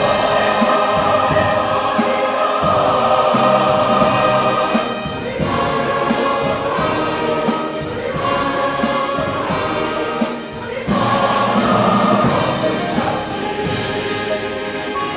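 A large choir singing a hymn anthem with orchestral accompaniment, in sustained phrases with short breaths between them about five and ten seconds in.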